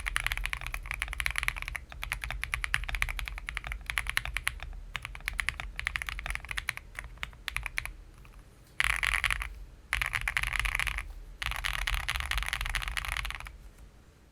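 Typing on an Akko 5075B+ mechanical keyboard with Akko V3 Cream Yellow linear switches, dampened with foam, polyfill and tape: a quick run of keystrokes that thins out after about six seconds, then three dense bursts of very fast key presses, the last one fading out near the end.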